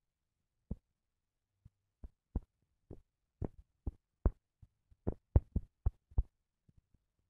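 Irregular soft taps of fingertips typing on a phone's touchscreen keyboard, about a dozen and a half, coming faster in the second half.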